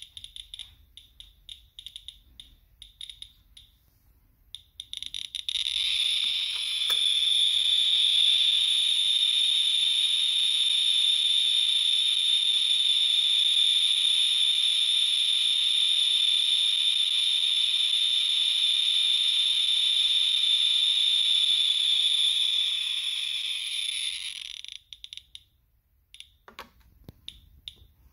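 Inspector Alert Geiger counter clicking rapidly. About five seconds in the clicks run together into one continuous high buzz lasting about twenty seconds, the count rate reaching about 58,000 counts per minute from the uranium glaze of a red Fiestaware saucer. Near the end it drops back to separate clicks.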